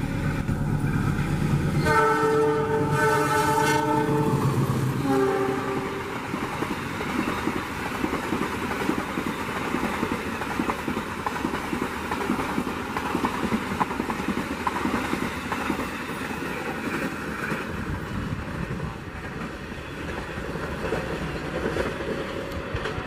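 Diesel locomotive's horn sounding a chord, cutting off about four seconds in, with a short final note that drops in pitch. Then the long rumble and clatter of the train's coaches rolling past over the rails.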